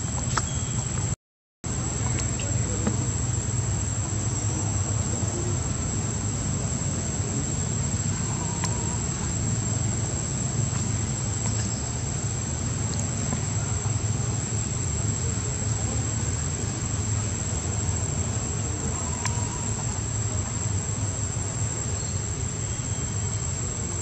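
Steady high-pitched insect drone, one unbroken tone, over a low steady background hum; the sound drops out completely for a moment about a second in.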